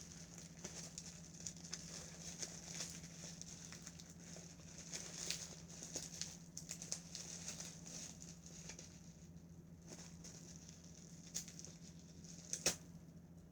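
Faint rustling and crackling of a mailed package being worked open by hand, with scattered light clicks over a steady low hum.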